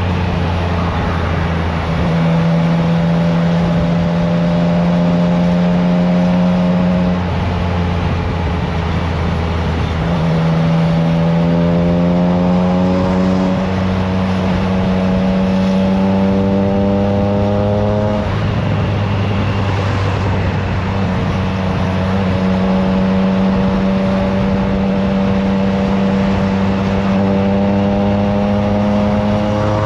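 Triumph Trident 660's three-cylinder engine running through a FireTong aftermarket exhaust at steady revs while riding. The pitch eases down and back up a few times with small throttle changes, over a steady rush of wind.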